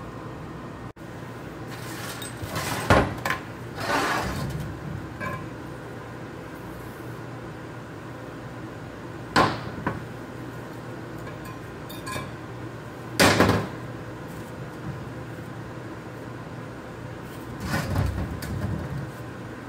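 About five scattered metallic clunks and clinks of steel parts handled on a steel workbench: a rear axle shaft with its hub and the cut-off bearing pieces. A steady hum of shop background noise runs underneath.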